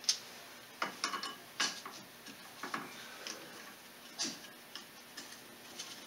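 Irregular metallic clicks and light clinks of ATV rear suspension parts and hardware being handled and fitted by hand during reassembly, with a sharper click right at the start.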